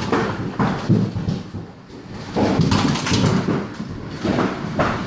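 Heavy hail pelting hard ground and surfaces: a dense, irregular clatter of knocks and thuds that eases briefly about two seconds in.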